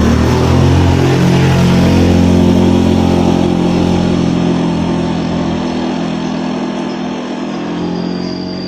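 A motor vehicle engine, likely a motorcycle, running steadily and slowly fading away.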